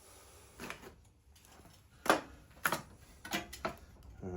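A handful of separate metal clinks and knocks, the loudest about two seconds in, as parts of a Petter A1 stationary engine's camshaft assembly are handled and worked free.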